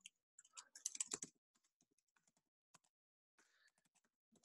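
Faint keystrokes on a computer keyboard: a quick run of key presses about a second in, then a few scattered presses.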